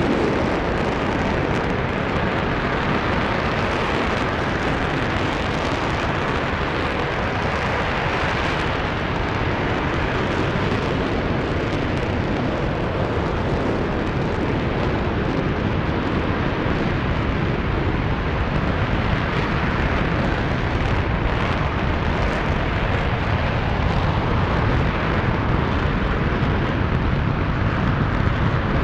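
RS-25 liquid-hydrogen/liquid-oxygen rocket engine firing steadily during a ground test: a loud, continuous, even rush of exhaust noise with no breaks.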